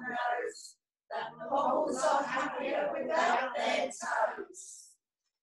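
A group of older people's voices reciting a poem together in unison, with a brief pause about a second in, then stopping shortly before the end.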